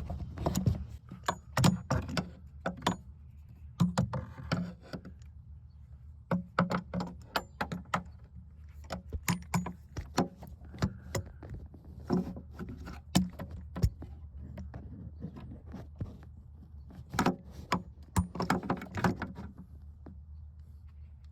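Irregular clicks, taps and light rattles of parts and tools being handled as a blower motor resistor is worked into place behind a tight wiring harness, over a steady low hum.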